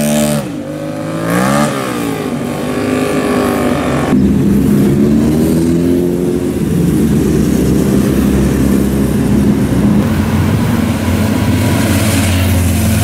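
Motorcycle engines on a street: an engine revs up and drops back twice in the first two seconds, then from about four seconds several motorcycles run at low speed in a steady, slowly varying mix as they ride past.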